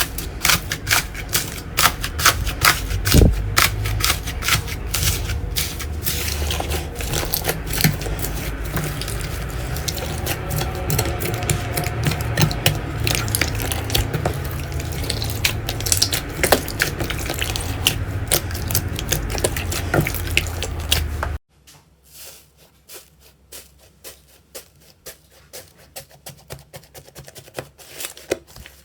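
Slime being squished and worked by hand, a dense run of wet clicks and pops. About three-quarters of the way through it cuts abruptly to a much quieter stretch of soft, scattered crackles.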